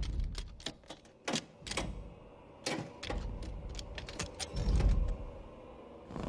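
Metal lever door handle being slowly pressed down, its latch clicking and creaking in a run of sharp ticks, then the door coming open with a heavier low sound a little past the middle.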